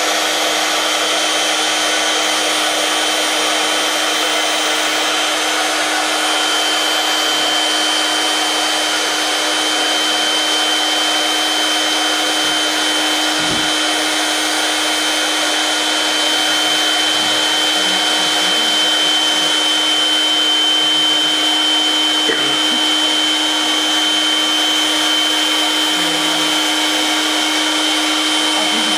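Small electric air pump running steadily: a constant blowing noise with a low hum and a high whine that grows stronger a few seconds in.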